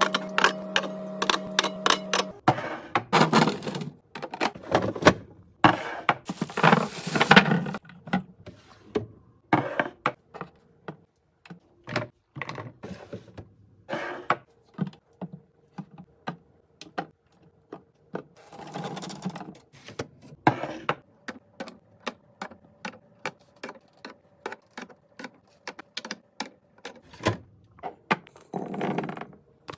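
Many quick clicks, taps and clunks of containers and packaged items being handled and set down while a fridge is restocked, with a few longer bursts of rustling or scraping between them.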